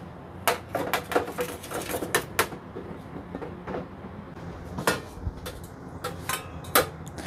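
Washed cherry tomatoes tumbling from a stainless steel bowl onto a stainless steel tray: a quick run of small knocks and clicks in the first couple of seconds. A few scattered clinks of the metal bowl and tray being handled follow.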